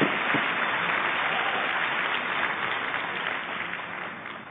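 Arena crowd applauding after a point, the clapping dying away near the end.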